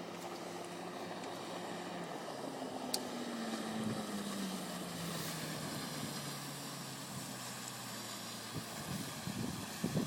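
50 hp Mercury outboard motor on a small boat running over the water, its pitch falling slowly and steadily over several seconds.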